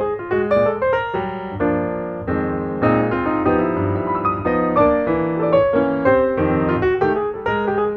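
Solo piano music: quick successions of notes, with sustained chords in the middle.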